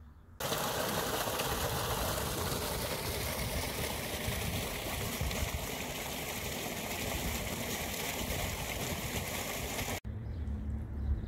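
Steady rushing of running water, which starts abruptly about half a second in and cuts off sharply about ten seconds in.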